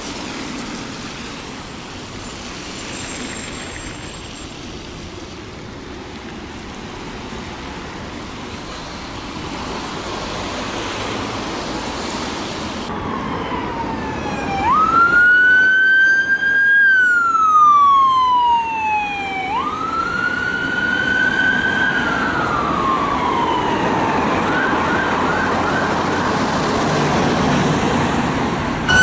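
Steady road and traffic noise, then an emergency vehicle's siren on its wail tone: two slow cycles, each a quick rise and a long falling slide, growing louder as it approaches. Near the end it fades into a faster warble.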